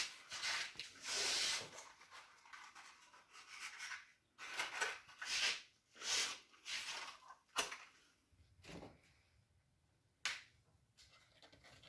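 Handling noises of a wood fire being laid and lit in a fireplace: a string of short rustles and scrapes, with two sharp knocks in the second half.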